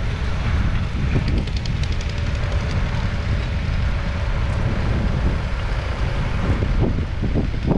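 John Deere 6215R's 6.8-litre six-cylinder diesel engine running steadily as a low rumble, with heavy wind buffeting on the microphone.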